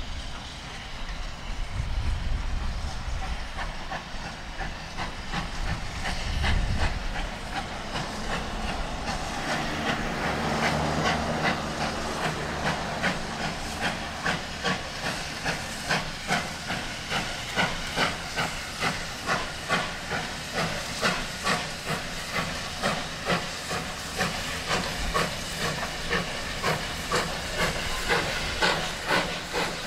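Steam locomotive approaching with a train, its exhaust chuffing in a regular beat of about one and a half a second over a steady hiss of steam. The beats become distinct about halfway through and grow louder as it nears.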